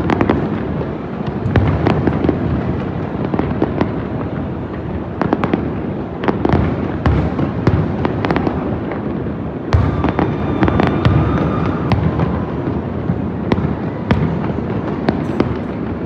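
Aerial fireworks going off in quick succession: a dense run of bangs and crackles over a continuous low rumble, with a heavier boom just before ten seconds in.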